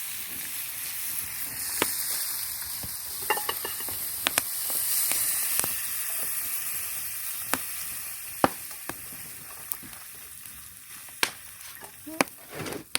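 Prawns sizzling in hot butter in a pan over a wood fire, with scattered sharp pops and clicks; the sizzle fades gradually toward the end.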